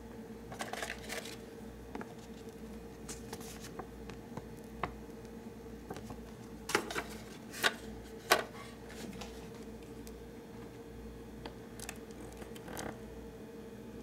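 Small clicks and rustles of hands handling parts, with three sharper clicks a little past the middle, over a steady hum.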